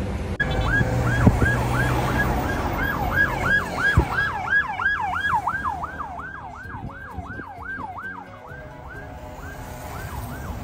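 Ambulance siren in a fast yelp, rising and falling about three times a second, heard over road rumble from a moving car as the ambulance passes. It weakens somewhat partway through and grows again near the end.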